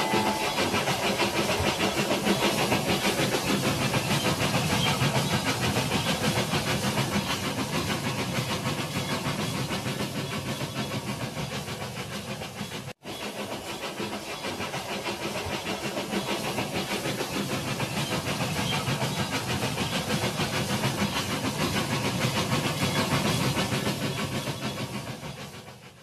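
Toy train running on plastic track: a steady hiss with a fast rhythmic clatter, cut off for an instant about halfway through.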